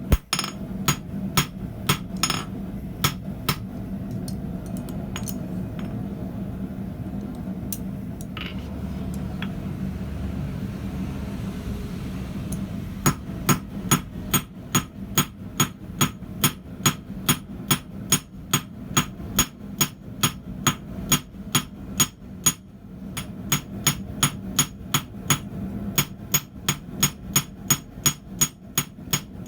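Hand hammer striking hot steel on an anvil while forging a thumb latch: a few scattered blows, then about ten seconds with only a steady low hum, then a run of regular strikes about two a second, broken once by a brief pause.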